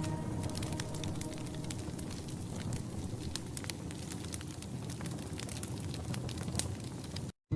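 Wood fire crackling: many scattered sharp pops and snaps over a soft steady hiss. The sound cuts out completely for a moment near the end.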